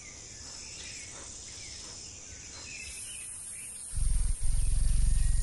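Faint outdoor ambience with steady thin high tones and a few faint chirps, then about four seconds in a loud low hum of a hummingbird's wings beating rapidly as it hovers close by.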